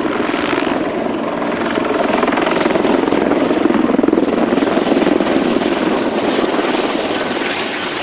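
Mil Mi-35 Hind attack helicopter in display flight, its rotor and turbine engines running loud and steady, swelling a little in the middle, as it flies backwards with its tail into the wind.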